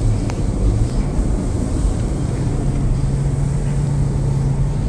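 Vehicle driving on a road, with a steady low rumble of engine and road noise and a steady low hum that starts about two seconds in.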